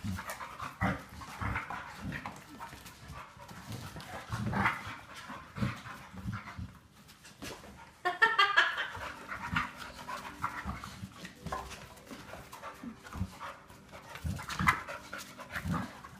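A puppy and another dog panting and moving about together, with irregular thumps and scuffles. About eight seconds in comes a short run of high-pitched sounds.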